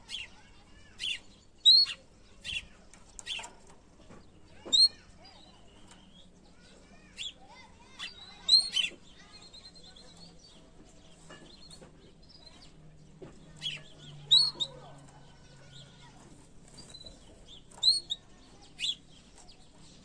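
Yellow canary giving short, separate chirps rather than full song: about one a second in the first few seconds, then sparser, with gaps of several seconds.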